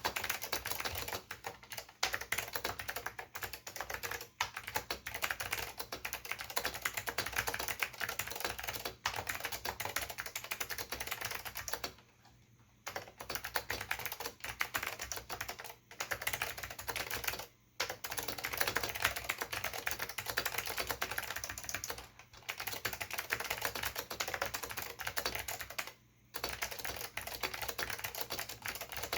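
Fast continuous typing on an Acer KB-101AS mechanical keyboard with Alps SKCM Blue clicky switches, a dense stream of key clicks broken by a few short pauses.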